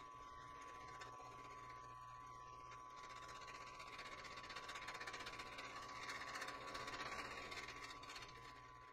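Mill-drill spindle running with a face mill taking a facing cut across a metal plate: a steady whine and hum under a hiss of cutting that grows louder through the middle and eases off near the end.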